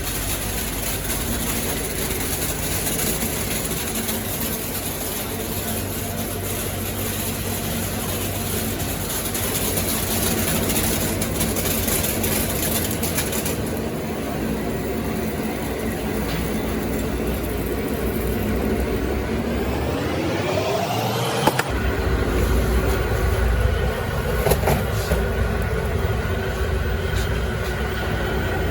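Machinery running steadily, with a whine that rises in pitch as a motor speeds up about two-thirds of the way through. The sound changes abruptly twice.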